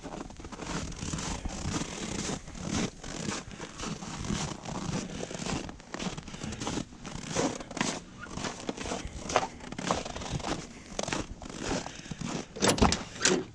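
Footsteps crunching through cold, packed snow. Near the end comes a louder sharp clack, the pickup's door being opened.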